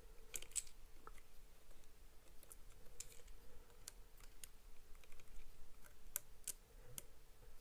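Small screwdriver working the screws of a screw terminal block on a motor driver board: faint, scattered clicks and ticks of metal on metal and plastic, a few seconds apart.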